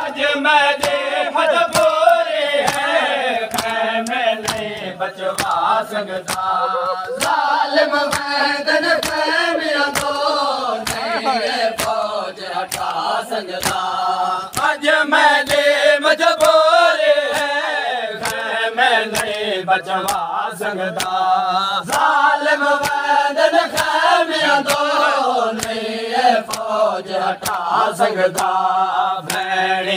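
A group of men chanting a noha (Shia lament) together, with a steady, even beat of hands striking their chests (matam) keeping time.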